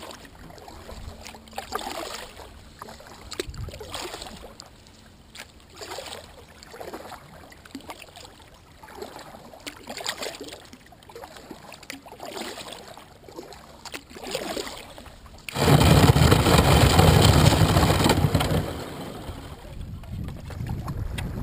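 Kayak paddle strokes, water splashing and dripping off the blade about every one to two seconds as the boat glides through open water. About two-thirds of the way in, a loud rushing noise with a heavy low rumble lasts about three seconds, then drops away.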